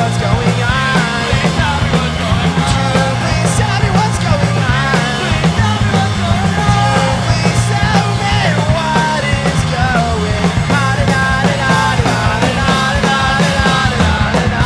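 Rock band playing live, loud and steady, with bass, electric guitars and drums.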